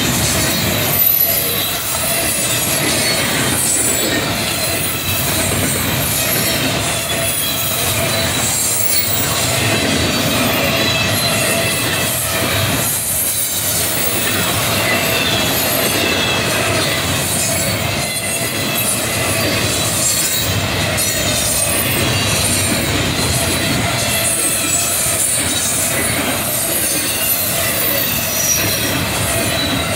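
Norfolk Southern double-stack intermodal freight train rolling past: a steady rumble of the loaded well cars, with high-pitched wheel squeal and the clicking of wheels over rail joints.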